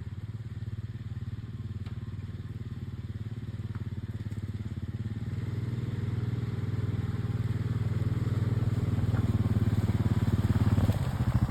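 Four-wheeler (ATV) engine approaching, growing steadily louder, its note changing about a second before the end.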